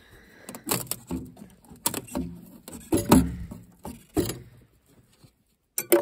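Footsteps crunching in snow, about one a second, with sharp knocks, then a metal clunk near the end from a steel toolbox being handled.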